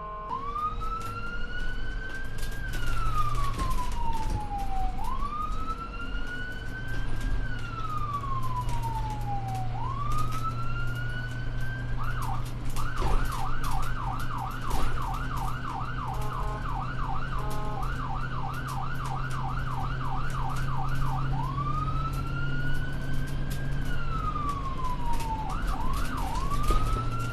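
Electronic emergency-vehicle siren sounding a slow wail that rises and falls about every five seconds. About halfway through it switches to a fast yelp of about two sweeps a second, then goes back to the wail, with a couple of quick yelps near the end. A steady low hum runs underneath.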